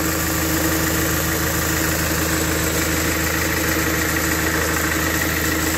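Mahindra XUV500's diesel engine idling steadily, driving its accessory belt over a newly replaced belt tensioner and pulleys.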